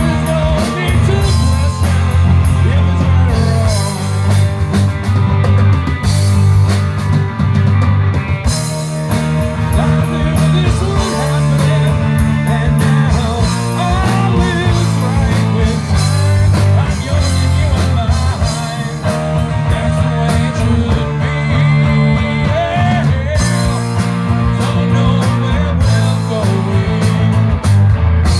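Rock band playing an instrumental passage: electric guitars over bass guitar and a drum kit, with a wavering lead line running through it.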